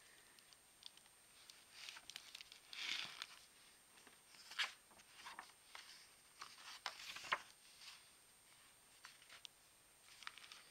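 Pages of a hardcover picture book being turned by hand: faint, scattered paper rustles and soft taps, loudest about three seconds in and again around seven seconds.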